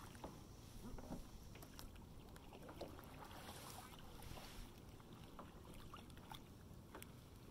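Faint water lapping against a kayak's hull, with scattered small ticks and splashes.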